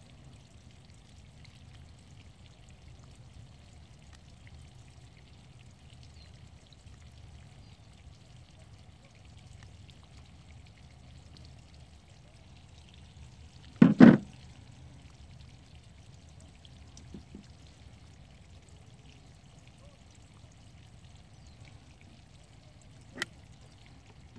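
Faint, steady low background rumble of an outdoor work site, with one loud, brief double knock about fourteen seconds in and a single sharp click near the end as the fiber is handled at the fusion splicer.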